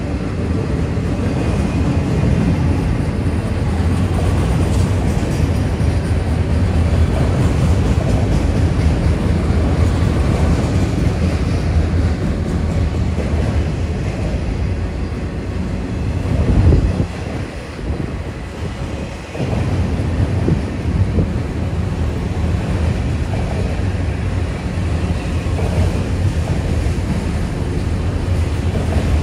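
Autorack freight cars rolling past close by: a steady rumble of steel wheels on the rails, with some clickety-clack. Just past halfway there is a brief louder spike, and then it is quieter for about two seconds before the rumble resumes.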